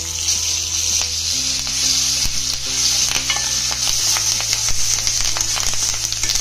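Hot oil sizzling in a kadai as fresh curry leaves fry in the tempering for lemon rice, with a steel spoon scraping and clicking against the pan as it stirs.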